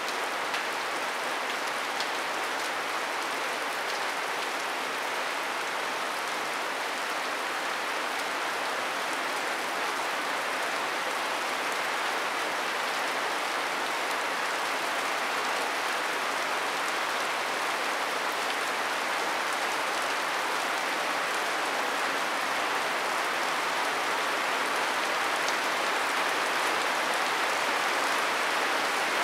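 Steady rain falling on a sago-palm-leaf thatch roof: an even hiss with faint scattered drop ticks, slowly getting a little louder.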